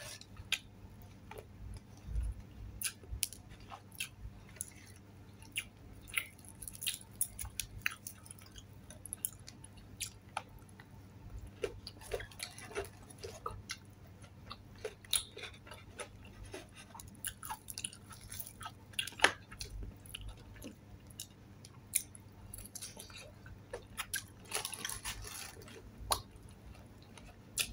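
Close-up mouth sounds of a person eating fried chicken by hand: irregular wet chewing, with scattered short clicks and smacks from biting and finger licking.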